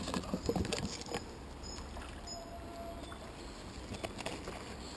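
Leaves and twigs crackling and rustling as someone pushes through dense bankside vegetation: a flurry of short crackles at the start and a few more about four seconds in.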